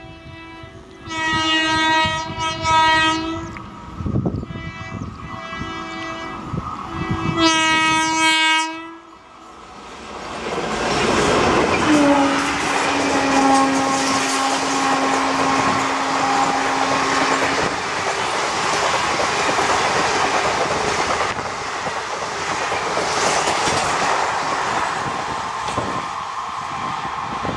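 Electric multiple unit train's horn sounds a series of warning blasts to clear workers off the track. About ten seconds in, an express of ICF coaches passes close by with a steady rushing rumble and wheel clatter, and a long low tone sounds for about five seconds as it goes by.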